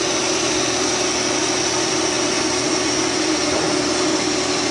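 Haas SR100 CNC router running, a steady whirring hiss with a low hum as its head moves along the gantry.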